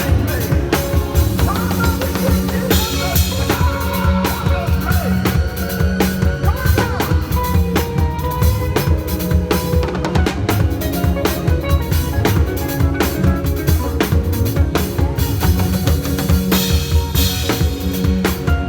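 Live church praise music driven by a drum kit: a busy, steady beat of bass drum, snare and rimshots under sustained melodic instrument lines.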